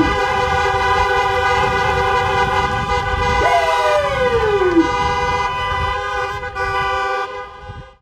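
Many MINI car horns honking together in one sustained, chord-like blare, with a tone sliding down in pitch about three and a half seconds in; the sound fades out in the last second.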